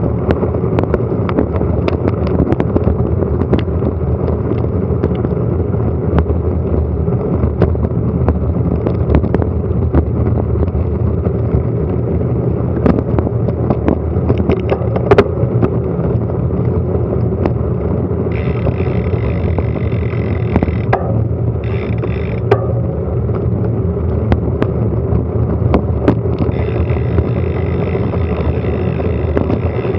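Heavy wind buffeting on an action camera's microphone during a fast bicycle descent, with frequent small rattles and knocks. A high steady whine joins in about eighteen seconds in, breaks off, and comes back near the end.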